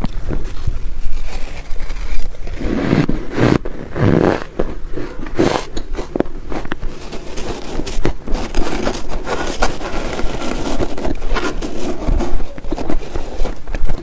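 Crunching and chewing of frozen soft ice dusted with matcha powder, a dense run of crackles with a few fuller crunches early on, while a metal spoon scrapes and scoops through the ice in a plastic bowl.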